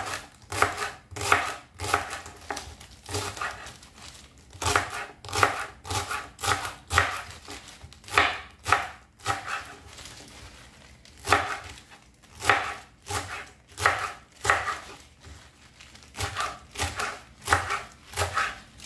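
Kitchen knife chopping spinach stems on a wooden cutting board: sharp knocks of the blade on the board, about two a second, with a short pause a little past the middle.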